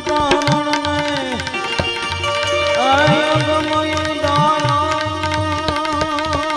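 Instrumental passage of Indian devotional music: two tabla sets played fast, the bass drum's strokes bending upward in pitch, with small hand cymbals clinking and a sustained gliding melody from harmonium and Indian banjo.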